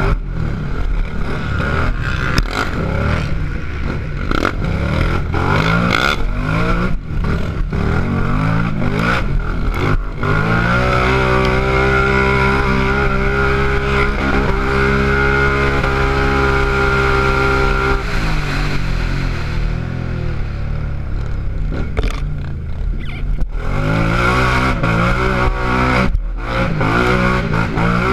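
Racing quad's engine, heard up close from on board, revving up and down as the rider works the throttle through tight trail. About a third of the way in, it is held at steady high revs for roughly eight seconds on an open straight, then backs off and goes back to choppy on-and-off throttle.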